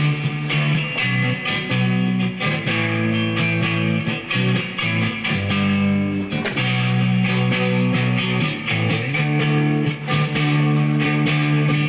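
Electric guitar playing held chords, each ringing for a second or more, with short breaks between them.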